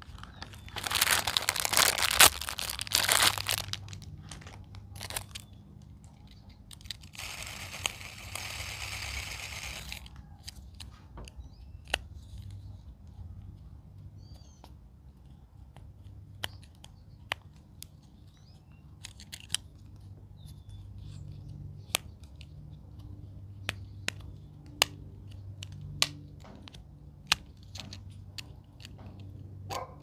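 Plastic packaging crinkling and tearing in two bursts, one about a second in and one about a quarter of the way through, followed by scattered single sharp clicks and taps.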